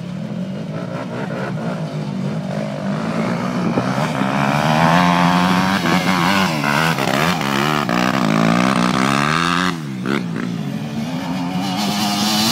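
Dirt bike engine revving hard under load as it climbs a steep dirt hill, its pitch rising and falling with the throttle. It drops away briefly about ten seconds in, then revs up again.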